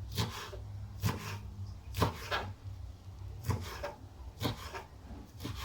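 Knife cutting fresh coriander on a chopping board: about seven sharp, irregularly spaced strokes with some scraping between them.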